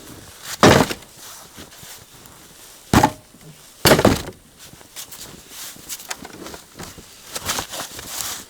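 Three heavy blows of a hand tool, the first just under a second in and the last two about a second apart, with lighter knocks and crunching between them and more crunching near the end.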